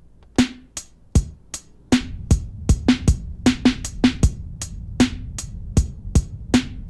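Music starts with a sharp, steady drum beat of about two and a half hits a second. A deep bass joins about two seconds in.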